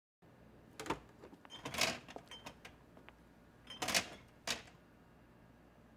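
Kitchen handling sounds: a string of clicks, knocks and rattles from drawers, cupboard and oven doors, with louder clattering about two seconds in and again about four seconds in.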